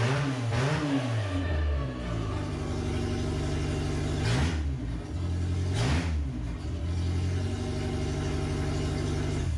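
Ford Festiva four-cylinder engine running without a muffler, blipped several times in the first second and a half and again about four and six seconds in, idling between the blips.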